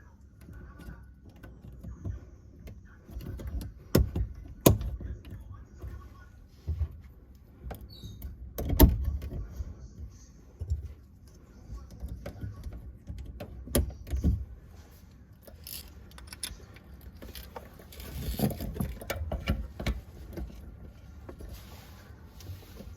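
Intermittent clinks, knocks and rattles of tools and metal fittings being handled during kitchen faucet replacement work, with the sharpest knocks around four, nine and fourteen seconds in.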